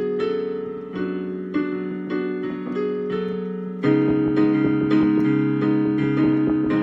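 Keyboard played with both hands: sustained chords that change every second or so, getting louder with a deeper bass note entering about four seconds in.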